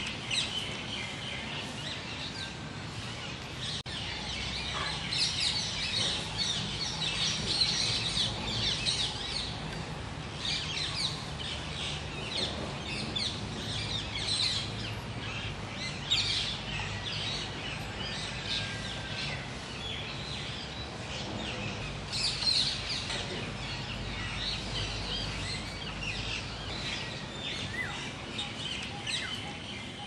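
Many birds chirping and calling at once in a dense, continuous chorus of short, high-pitched notes, busier in bursts every few seconds.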